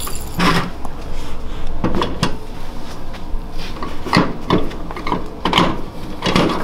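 A knobby go-kart tyre and wheel being slid onto its front hub and worked into place: a string of separate clunks and knocks, with light metal clinks.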